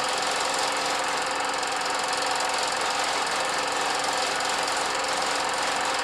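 Film projector running: a steady, rapid mechanical clatter over a constant hum.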